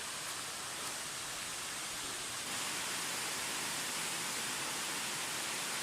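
Waterfall's steady rush of falling water, stepping up a little in level about two and a half seconds in.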